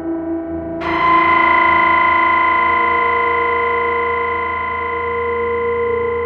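Suspense sound effect: a sustained, distorted drone of stacked tones. About a second in, a brighter, harsher layer comes in and holds, over a low pulsing throb.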